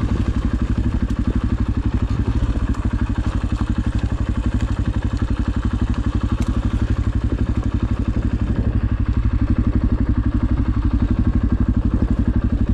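Single-cylinder four-stroke dirt bike engine running at a low, steady speed on a trail ride, with a few small clicks and knocks.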